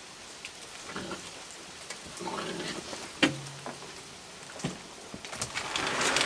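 Steady rain falling, with scattered clicks and knocks from a crowd of raccoons feeding on a wooden deck, and a louder rustling near the end.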